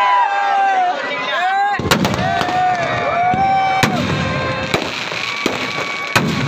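Aerial fireworks going off: several sharp bangs of bursting shells over many overlapping whistling tones that rise and fall.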